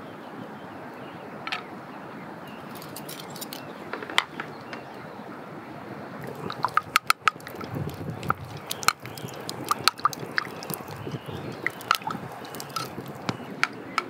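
Wood fire crackling and popping in a fire pit, with a steady hiss underneath; the sharp pops come thicker and louder from about halfway. Amazake simmers in the hanging kettle over it.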